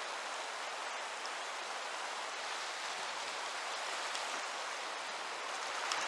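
Fast whitewater rapids rushing over boulders, a steady hiss of moving water.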